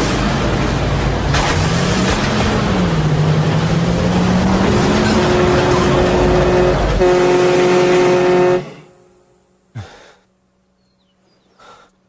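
Heavy truck engines running loud, their note rising and falling, with a horn blaring steadily for about a second and a half before the sound cuts off suddenly. A single thump follows about a second later.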